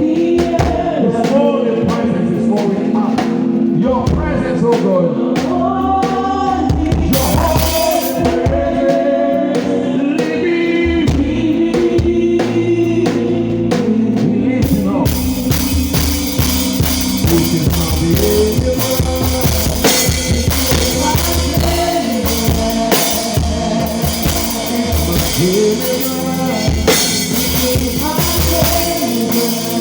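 A live church worship band playing a gospel groove on drum kit and bass, with singing over it, poorly recorded. The sound grows fuller and brighter about halfway through.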